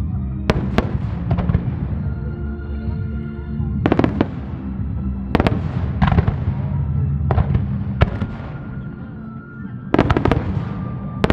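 Starmine fireworks shells bursting in a string of sharp bangs, some in quick pairs, each trailing off as it fades, with music playing underneath the show.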